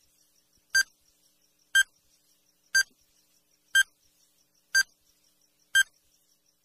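Countdown timer beeping, one short high-pitched beep each second, six times, with a faint quick ticking underneath.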